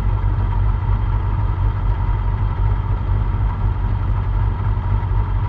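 Simca 1000 rally car's rear-mounted four-cylinder engine idling steadily, heard from inside the car's cabin.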